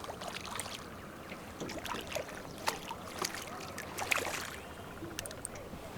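Water lapping and light splashing around a small boat, with scattered small clicks and knocks.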